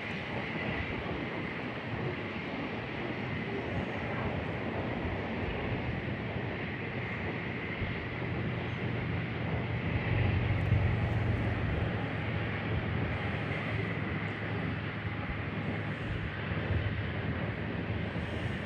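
Freight train of grain hopper cars rolling past: a continuous rumble of steel wheels on rail, a low hum that grows louder about halfway through, and a faint steady high ring over it.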